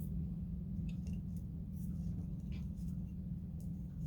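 Faint clicks and rustles of craft materials being handled, over a steady low hum.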